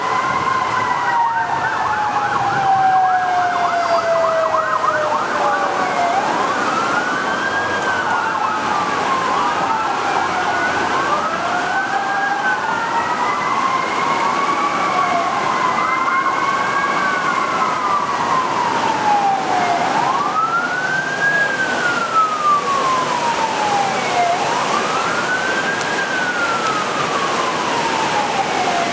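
Emergency vehicle sirens wailing, two or more overlapping, each rising quickly and then falling slowly in a cycle of about four seconds, with a fast yelp in the first few seconds, over a steady hiss.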